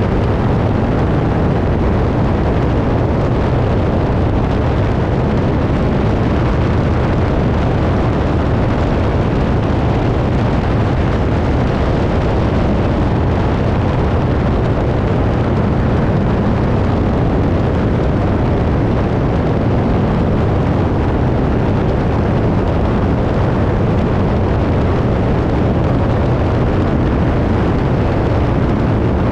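A biplane's engine and propeller drone steadily in flight, mixed with rushing wind on a tail-mounted camera; loud and unchanging throughout.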